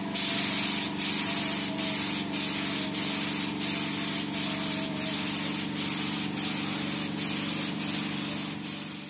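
Gravity-feed spray gun hissing as it sprays thinned paint onto a metal panel, the spray breaking off briefly about every 0.7 s. A steady low machine hum runs underneath.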